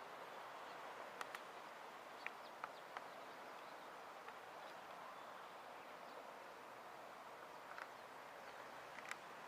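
Quiet outdoor ambience: a steady faint hiss with a few short, faint bird chirps, several in the first three seconds and a couple more near the end.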